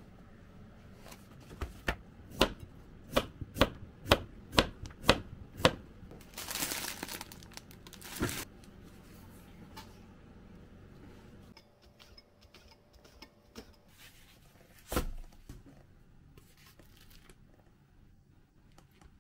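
Kitchen knife slicing cucumber on a plastic cutting board: a run of about eight even knife strokes, roughly two a second. Then comes a short crinkling, tearing rustle, and later a single knock.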